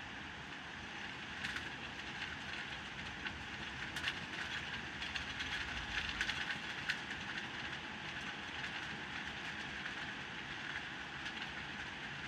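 Heavy rain pouring steadily, with a close patter of individual drops that picks up about a second in and is thickest in the middle.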